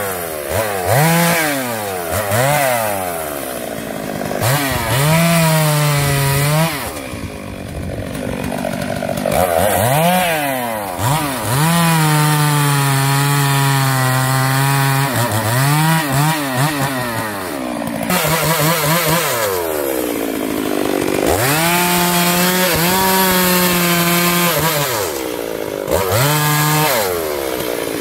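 Stihl MS 382 two-stroke chainsaw cutting through felled tree trunks. The engine revs up and drops back again and again as the throttle is opened and eased between cuts, with long steady stretches at full throttle while the chain is in the wood.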